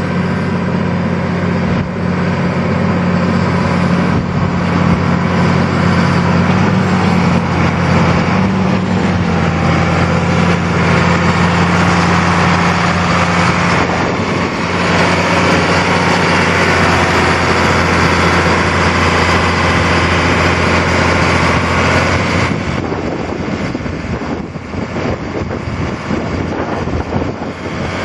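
1984 Allis-Chalmers 8070 tractor's six-cylinder diesel engine running steadily. Its sound becomes less even about three quarters of the way through.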